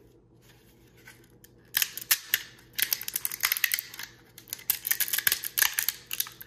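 3D-printed plastic support material snapping and crackling as it is broken away from the print by hand. It is a quick, irregular run of sharp clicks starting a little under two seconds in.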